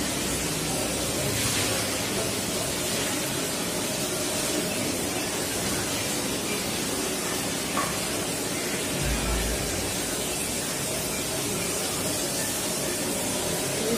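Steady background hiss with a single faint click about eight seconds in.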